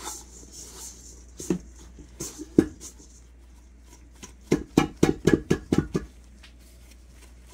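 Gloved hands squeezing and crumbling butter-and-flour crumble dough in a metal mixing bowl: soft squishing and rubbing with scattered clicks and taps, including a quick run of them about four and a half seconds in.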